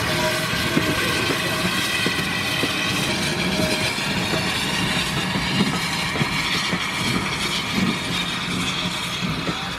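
Caledonian Class 439 0-4-4T steam tank locomotive and its two coaches running past and pulling away, with a steady rumble and scattered clicks of the wheels over the rail joints.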